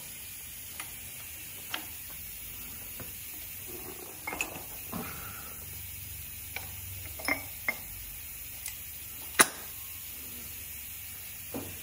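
Scattered light clicks and knocks of motorcycle fork parts being handled and fitted into a fork leg, with one sharper knock about nine and a half seconds in.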